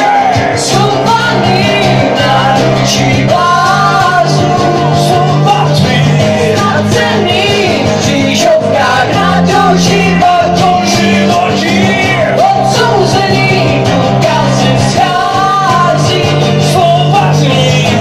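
Live rock band playing a song with a singer, loud, over a steady bass line and cymbals.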